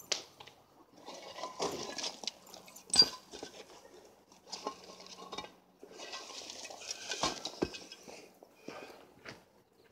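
Irregular clattering, scraping and clinking of hardware and materials being handled by hand, broken by sharp knocks about three seconds in and twice more, close together, near seven and a half seconds.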